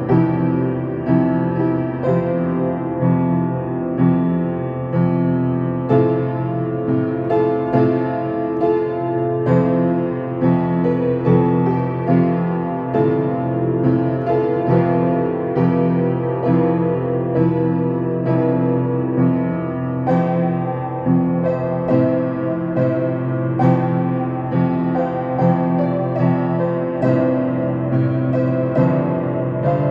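Piano playing a calm piece: held chords under a melody, with notes struck at an even, unhurried pace.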